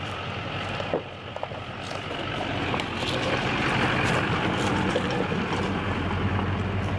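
Pickup truck engine idling steadily, getting louder about three seconds in. A single sharp knock about a second in.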